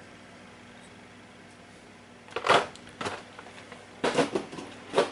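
Quiet room tone for about two seconds, then a handful of short rustles and knocks of things being handled on a table, the loudest about halfway through.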